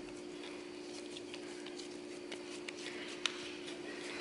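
Hands squeezing and patting soft arepa dough into a ball, giving small sticky pats and clicks, with one sharper click a little past three seconds in. A steady hum runs underneath.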